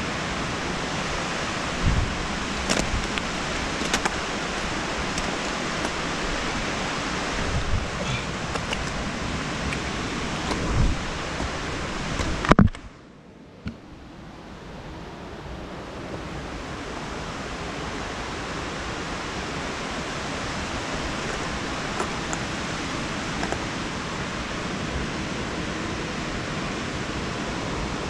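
Steady rushing outdoor noise with a few knocks and bumps from the climb. After a loud knock about halfway through, the noise drops away suddenly and swells back over several seconds.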